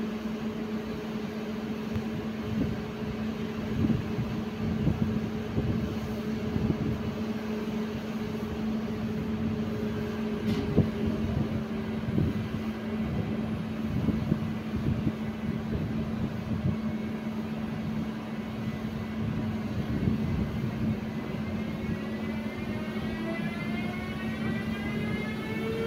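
Siemens Vectron electric locomotive pulling away with its passenger train: a steady electric hum with irregular low rumbling. Near the end a stack of rising whines from the traction converters comes in as it picks up speed.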